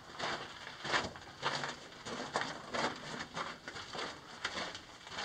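Footsteps on the gritty rock floor of a narrow mine tunnel, each step a short scuff or crunch, at a steady walking pace of about two steps a second.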